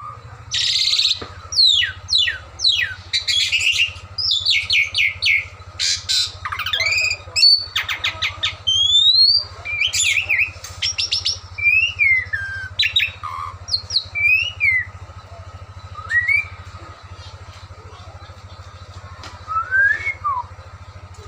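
A jalak (a bird of the starling and myna family) singing a varied run of whistles, harsh squawks, rising and falling glides and fast rattling notes. It is busy for about the first fifteen seconds, then gives only a few sparser calls. A steady low hum runs underneath.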